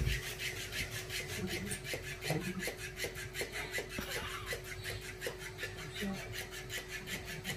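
A cat wrestling and kicking a plush toy fish: a steady rhythmic rasping at about six strokes a second, with scattered soft taps.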